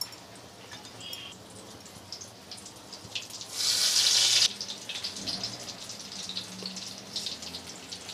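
Potato bhajiyas in besan batter deep-frying in hot oil in an aluminium kadai, a steady fine crackle and bubbling. About three and a half seconds in there is a louder rush of sizzling lasting about a second, as a fresh battered slice goes into the oil.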